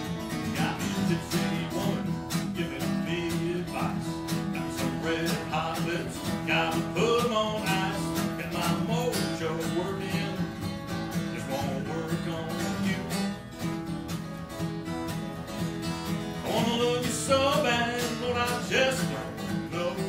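Blues guitar playing: a steady repeating bass figure with higher notes that bend up and down in pitch over it.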